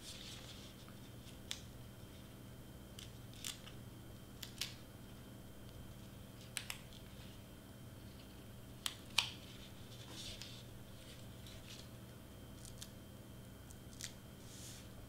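Cardstock pieces being handled and pressed into place: scattered light paper clicks, taps and short rustles, the sharpest two close together about nine seconds in, over a faint steady hum.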